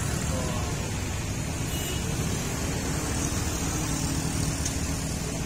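Stopped traffic queue: heavy lorries' diesel engines idling steadily, with motorcycles riding past.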